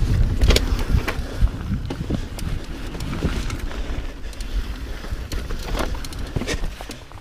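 Mountain bike descending a dirt singletrack: wind buffeting the microphone and tyres rumbling over the trail, with frequent sharp clicks and knocks as the bike rattles over bumps and roots. Loudest in the first second and a half.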